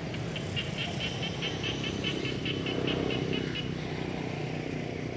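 Steady low rumble of motorbike and road traffic, with a rapid run of short high-pitched chirps, about five a second, that stops a little past halfway.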